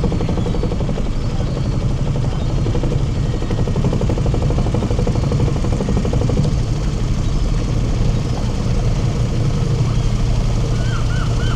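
Hired leisure motorboat's engine running steadily at a low, even pitch, heard from on board. Near the end a rapid string of high chirps starts, about four a second.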